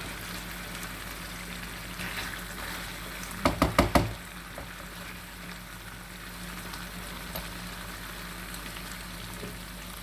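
A quick run of about five sharp knocks, about three and a half seconds in, over a steady low hum and faint hiss.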